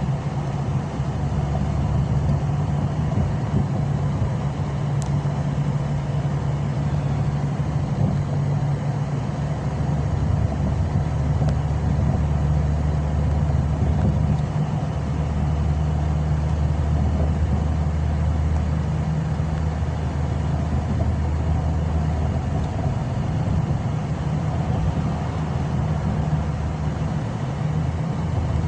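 Steady low drone of a car's engine and tyre noise heard inside the cabin while driving at a constant pace.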